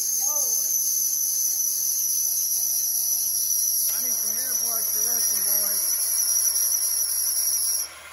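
High-pitched screech from the serpentine belt drive of a 2010 Toyota Corolla 1.8 L engine just after start-up, sinking slightly in pitch and cutting off suddenly near the end. It is the start-up screech the car came in for, which the mechanic takes first for the belt, with a growl that points to a bad pulley bearing.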